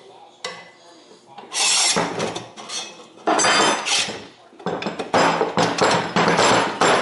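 Metal drill-press parts scraping and clanking against each other as they are worked into place during assembly, in several loud bursts with brief metallic ringing.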